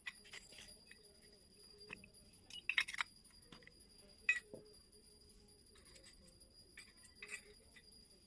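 Small toy kitchen pieces clicking and clinking as they are handled and set down: a quick cluster of taps about three seconds in, a sharp click just after four seconds, and a few lighter taps later.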